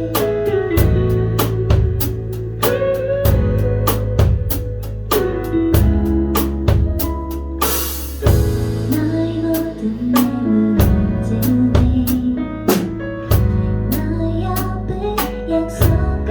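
Live band music with a drum kit keeping a steady beat over bass and a shifting melodic line, and a cymbal crash about halfway through.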